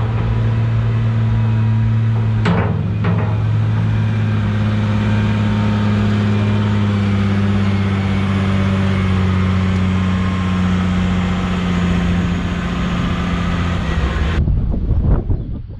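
Tractor engine running steadily at constant speed, with a short click about two and a half seconds in. The engine sound cuts off suddenly near the end, giving way to wind noise on the microphone.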